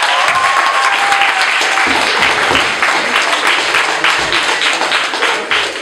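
Audience applauding, with a few voices whooping in the first second or so; the clapping eases slightly near the end.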